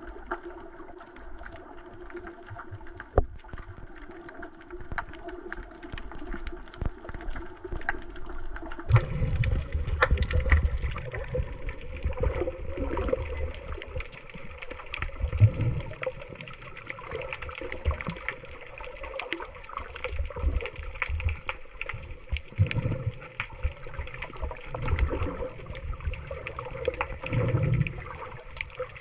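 Underwater sound picked up by a submerged camera: a steady watery hiss with many scattered clicks. From about nine seconds in, louder low, muffled water rumbles swell and fade every few seconds.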